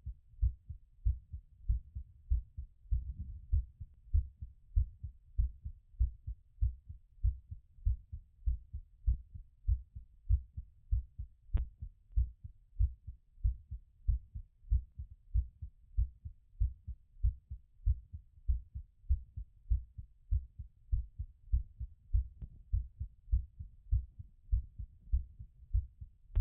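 Heart sounds heard through a stethoscope during recovery after exercise: a steady, regular train of low lub-dub beats.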